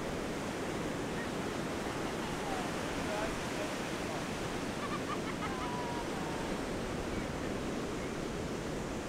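Ocean surf washing steadily onto a sand beach.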